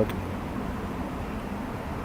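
Steady low hum inside a stationary car's cabin, with no distinct clicks or events.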